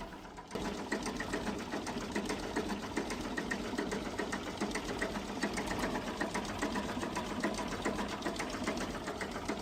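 A machine running with a fast, even ticking clatter that starts about half a second in and holds steady.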